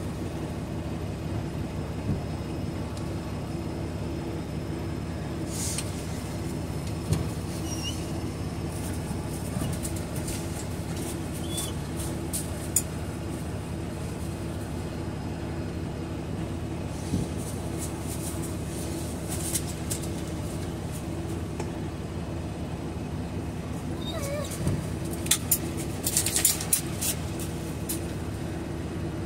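Semi-truck's diesel engine idling in a steady low hum, heard from inside the cab. Scattered clicks and rustles are on top, with a small cluster of them near the end, and a few faint, brief high squeaks.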